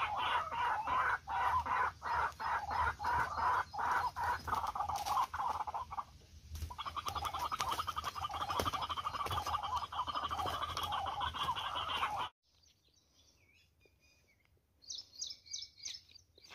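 A forest hen (wild fowl) giving a long run of clucking calls. At first the notes come separately, a few a second; from about seven seconds they become a faster, continuous rattling cackle, which cuts off suddenly at about twelve seconds. A few faint high chirps come near the end.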